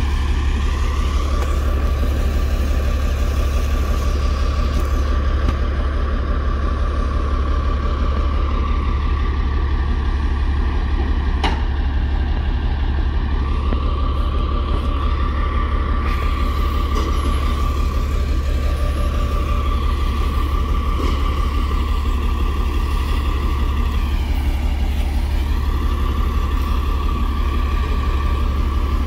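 Front-loader garbage truck's diesel engine running close by with a steady deep drone, a high whine rising and fading over it several times. A single sharp click comes about midway.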